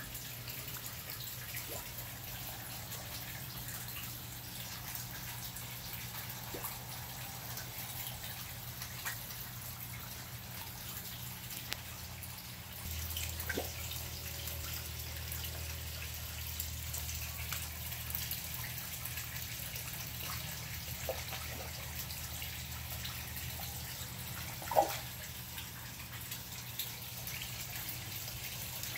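Koi pond water with small drips, plops and slurps at the surface as koi take floating food, over a steady low hum. A deeper hum joins about halfway through, and one sharper pop comes late on.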